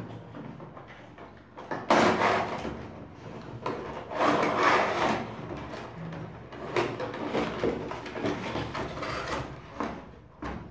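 Cardboard box and clear plastic packaging being handled: the plastic inner tray scrapes and rubs as it is slid out of the cardboard box, in several bursts, with a short sharp knock near the end.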